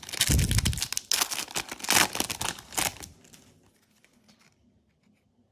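Foil wrapper of a Yu-Gi-Oh booster pack being torn open and crinkled, a dense crackling that lasts about three seconds, then dies away.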